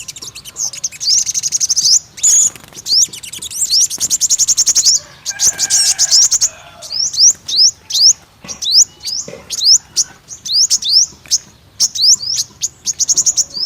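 Sunbird song: a quick run of high, upward-sweeping chirps broken by fast rattling trills.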